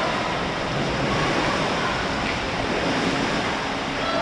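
Steady wash of splashing water in an indoor pool hall, as a row of dragon boat paddles strokes through the pool water at the edge.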